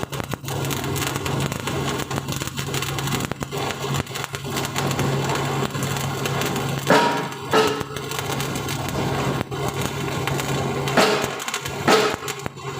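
Electric arc welding on a steel cage frame: a dense, continuous crackle of the arc, with a steady low hum underneath.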